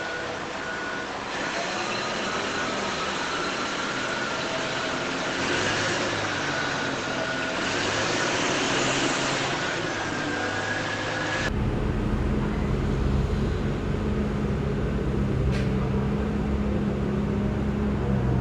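Radio-controlled toy construction vehicles running: small electric motors and plastic gearboxes whining, rising and falling in pitch as they work. About two-thirds of the way through, the sound changes abruptly to a deeper, steadier hum.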